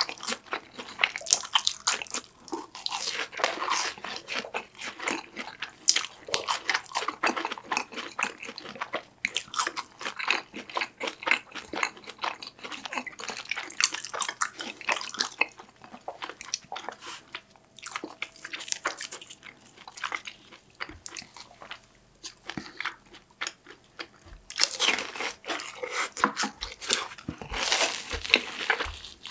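Two people biting into and chewing BHC fried cheese balls: irregular crisp crunching and crackling of the fried crust, heaviest in clusters of bites.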